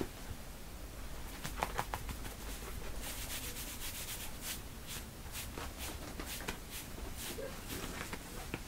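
Kittens' claws and paws scratching and rubbing against denim jeans: a run of quick, short scratchy strokes that grows thicker about three seconds in.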